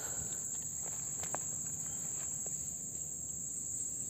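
Steady high-pitched drone of insects, a swamp insect chorus, with a few faint clicks over it.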